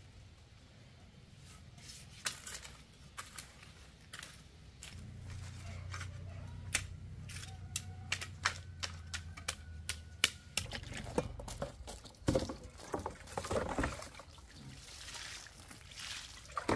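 A hoe chopping and scraping in soil, a run of sharp knocks, with a low steady hum underneath for several seconds in the middle. Later, water splashes and pours from a plastic basin onto the ground around a small tree.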